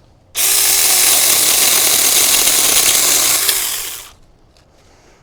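Saker mini 4-inch battery-powered electric chainsaw running for about three and a half seconds, its chain cutting through a small cedar branch. The motor spins up about half a second in and winds down near the end.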